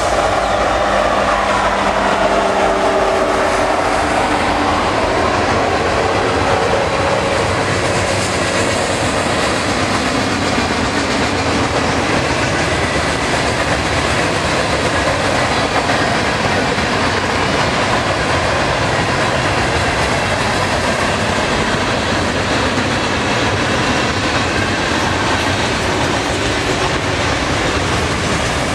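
Union Pacific diesel freight locomotive passing close, its steady engine tones fading over the first few seconds. Then the freight cars roll past: a steady, continuous noise of wheels on the rails, with clickety-clack over the joints.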